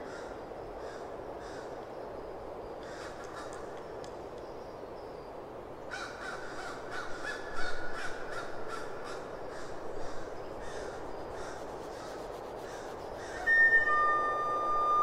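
Quiet ambient passage in an album track: a steady noise bed with scattered harsh, rasping calls, then a held high, flute-like tone coming in near the end.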